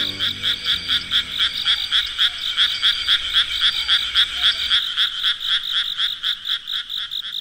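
A frog calling in a steady, rapid pulsed rhythm, about six pulses a second, with soft low background music fading out partway through.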